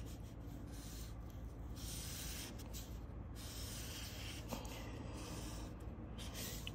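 Felt-tip marker drawn across paper in faint rubbing strokes as the lines of a rectangle are drawn, over a low steady hum.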